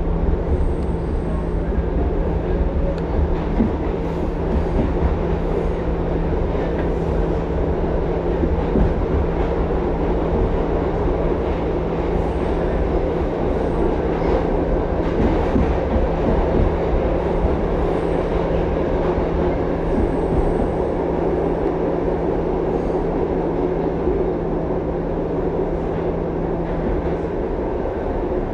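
Interior of an R62A New York City subway car running along the track: a steady loud rumble of wheels on rail with faint scattered clicks. A low steady hum underneath cuts off near the end.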